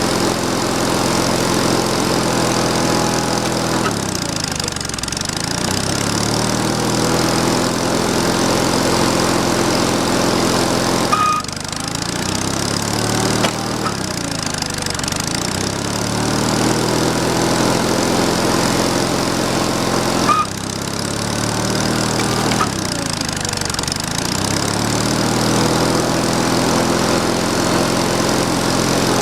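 Sawmill engine running steadily, its pitch dipping and coming back up three times, with a short click near the second and third dips.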